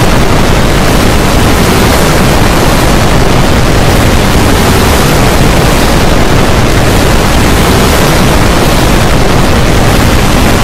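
Loud, steady, harsh noise filling every pitch, with no tune or voice standing out: a heavily distorted, overdriven audio track.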